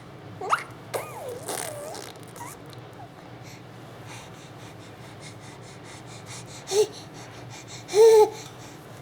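Baby making noises in short sliding, wavering squeals and coos: several in the first two seconds, then a short one near seven seconds and a louder one about a second later.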